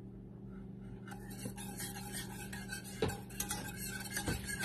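Wire whisk stirring cream in a stainless steel saucepan, its wires scraping and clinking against the pan, starting about a second in, with a few sharper taps.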